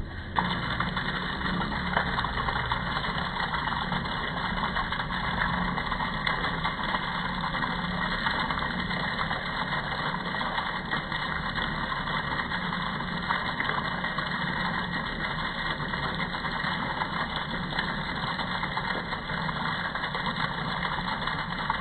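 A 1 HP jet pump's electric motor starts a moment in and runs steadily, a constant hum under an even rushing noise.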